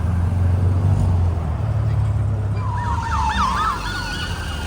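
A low vehicle rumble, then about two and a half seconds in a siren starts yelping in quick rising and falling sweeps.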